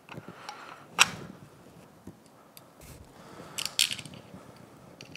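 Metal stator mount bracket being handled and seated onto an outboard engine block. One sharp metal knock about a second in, a few light clicks, and a quick cluster of clinks near the end.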